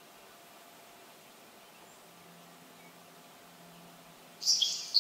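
Nelson's sparrow giving its raspy, hissing trill, like water on a hot skillet, in two quick loud bursts near the end. Before it there is only faint recording hiss.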